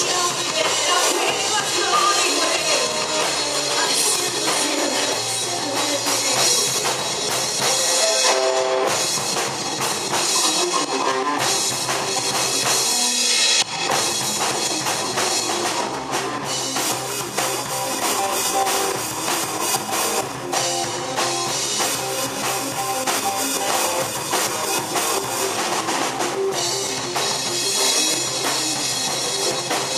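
Live rock band playing loudly on electric guitars and drum kit, heard from within the audience.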